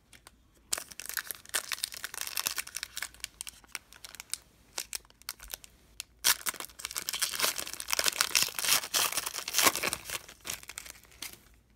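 Foil wrapper of a trading card pack being torn open and crinkled by hand, in two long stretches of crackling with a short pause between, about four seconds in.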